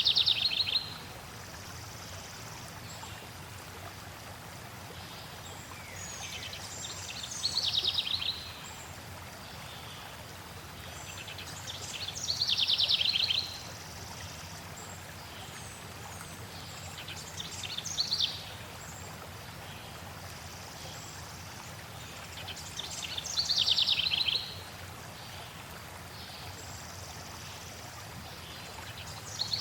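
Flowing water running steadily, with a songbird repeating the same short, rapid trilled phrase about every five to six seconds; the song phrases are the loudest sound.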